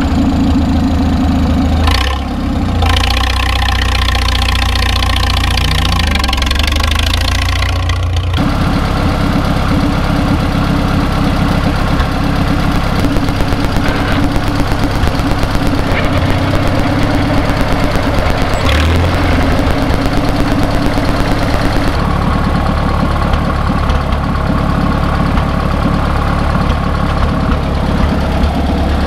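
1942 Farmall M's four-cylinder gasoline engine running through a stainless steel straight-pipe exhaust. The sound is steady, dips briefly about two seconds in and changes abruptly about eight seconds in.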